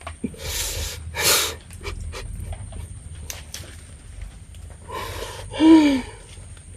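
A man sobbing: two sharp, gasping breaths in the first second and a half, then a loud wail that falls in pitch near the end.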